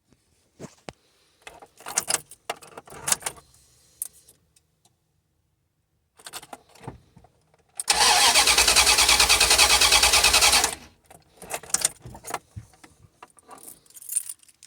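Scattered clicks and rattles, then the van's starter cranking the engine for about three seconds with a fast, even pulse before stopping without the engine catching: a no-start, part of an intermittent starting problem.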